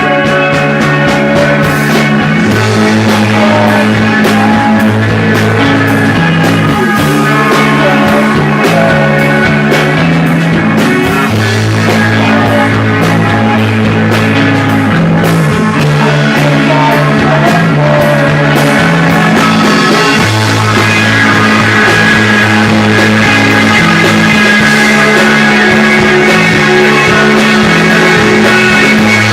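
A rock band playing live and loud, with electric guitar, bass guitar and a drum kit. The bass moves through a changing line of notes under steady drum hits.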